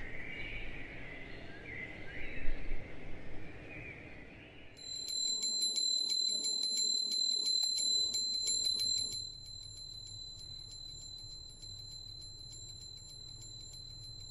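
Birds chirping faintly for the first few seconds. Then a small brass puja hand bell is rung rapidly and continuously during the aarti: a steady high ring with quick, even strikes.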